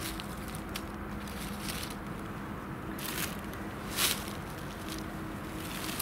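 Steady noise of distant highway traffic, with a few crackling rustles of leaf litter and twigs underfoot or under hand; the loudest crackle comes about four seconds in.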